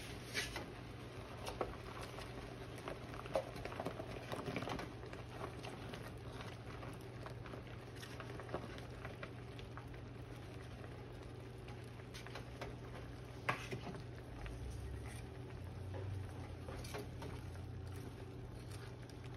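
Soy-and-sake sauce simmering in a cast iron skillet, bubbling softly over a steady low hum, with scattered splats and clicks as sliced vegetables drop into the pan and are moved around with metal tongs.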